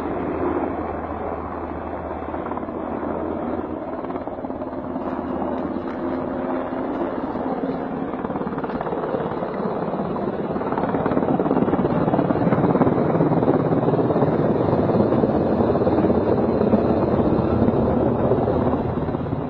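Helicopter rotor and engine noise heard from on board: a steady rushing drone that grows louder about ten seconds in.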